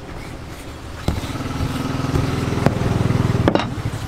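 A small engine running close by, getting louder about a second in and easing off near the end, with a few sharp knocks over it.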